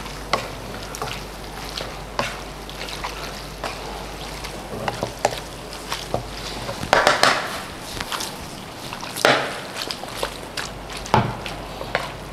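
Wooden spatula stirring and tossing sauced fettuccine in a nonstick frying pan: frequent light taps and scrapes against the pan, with a few louder scrapes about seven, nine and eleven seconds in.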